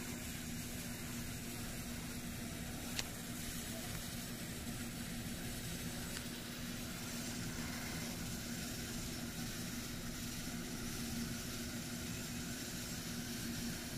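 Steady hiss and low hum from a C58 steam locomotive standing with steam up, with no exhaust beats. A faint click about three seconds in.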